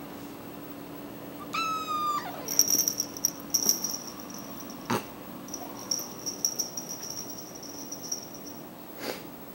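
A cat meows once, a single high call held briefly and then falling, about two seconds in. It is followed by several seconds of light, high jingling and ticking, with one sharp knock about halfway through.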